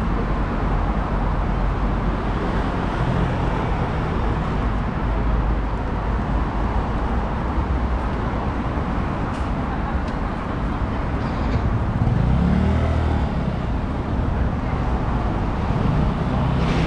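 Steady city road traffic: a dense rumble of cars and other vehicles passing on a busy road. About twelve seconds in, one vehicle's engine rises in pitch as it pulls away.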